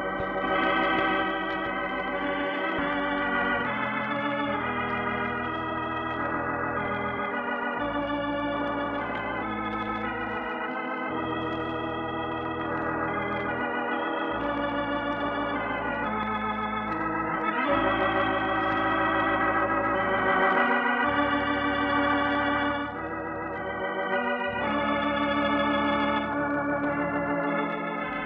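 Organ playing the programme's closing theme: sustained, wavering chords over a bass line that moves to a new note every few seconds.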